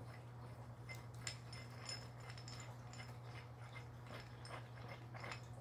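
Faint scattered metallic clicks and ticks from a threaded press tool being turned by hand as it presses a part into a suspension control arm, over a steady low hum.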